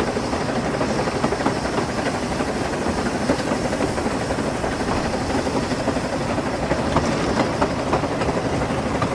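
Narrow-gauge steam locomotive Welsh Pony, an 1867 George England saddle tank, running under way, heard from its tender: steady clatter of wheels on the rails with many small clicks, mixed with the rush of steam exhaust and air.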